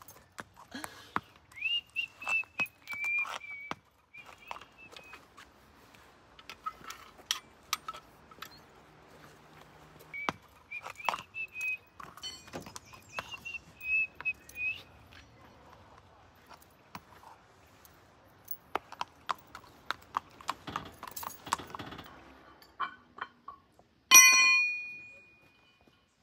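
Horse hooves clip-clopping on a paved road, with scattered knocks and a few wavering high tones. Near the end, one short, loud, high-pitched tone.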